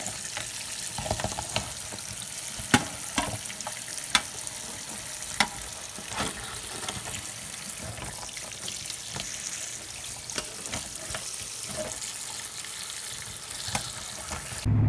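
Tap water spraying onto blue crabs in a stainless steel sink, a steady hiss, with sharp clicks scattered through it as metal tongs knock against the shells and the sink.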